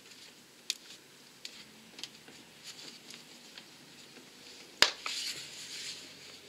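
Faint clicks and rustling of gloved hands handling parts on a diesel engine's timing end, with one sharp metallic click a little before five seconds in.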